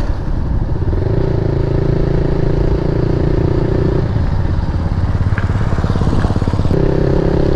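KTM Duke 250's single-cylinder engine running through an aftermarket Akrapovic exhaust while riding, with a low rumble of road and wind noise. The exhaust holds a steady note, turns rougher and uneven about four seconds in, then settles to a steady note again near the end.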